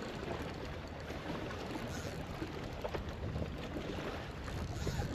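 Steady wind and water noise on a fishing kayak, with small waves lapping against the hull and a few faint clicks.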